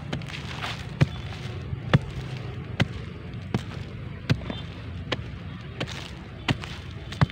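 Small hand hoe chopping into dry, lumpy red soil, striking about once a second, each blow a short sharp thud as it breaks up clods while digging out a metal detector target.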